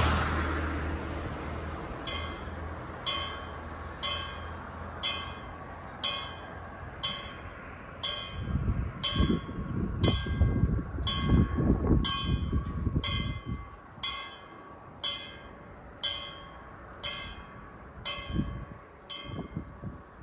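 Level-crossing warning bell starts ringing about two seconds in, striking evenly about once a second, signalling that a light-rail train is approaching. A passing vehicle fades out at the start, and a low rumble swells and fades in the middle.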